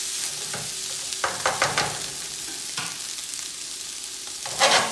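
Fried rice with vegetables and chicken sizzling in a hot nonstick frying pan. A plastic slotted spatula scrapes and taps against the pan a few times about a second in as the rice is stirred, with a louder knock near the end.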